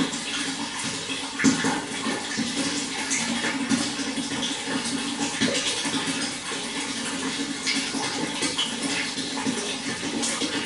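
Running water splashing steadily, with many small splashes and drips over a continuous rush.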